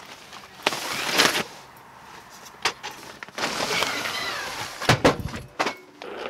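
Goods being unloaded from a cargo trailer: plastic bags and wrapping rustling as they are handled, a few sharp clunks about five seconds in, then a loaded hand truck rolling off on pavement near the end.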